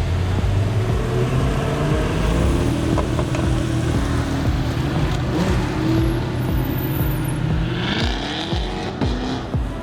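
A performance car's engine and exhaust accelerating away. The engine note climbs in pitch several times as it revs, with a strong rise near the end.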